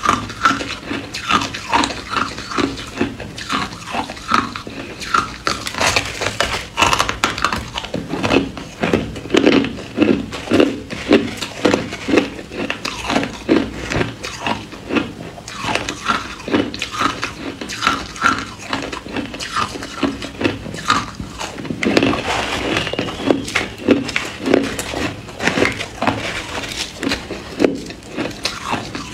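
Ice being bitten and chewed close to the microphone: a steady run of crisp crunches, a few a second.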